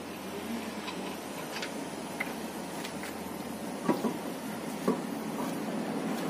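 Light metallic clicks of a loosened wheel nut being spun off its stud by hand, then a few louder knocks about four and five seconds in as the alloy wheel is pulled off the hub, over steady background noise.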